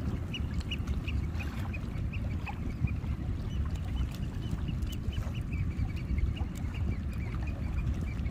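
Steady low rumbling background noise with a run of short, high chirps repeating about three times a second.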